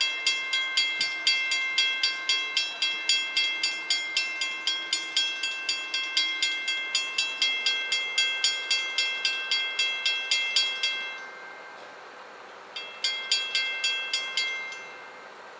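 Railroad grade-crossing warning bell ringing in quick, even strikes, about three a second, warning of an approaching train as the crossing gate comes down. It stops about eleven seconds in, then rings again briefly for a second and a half.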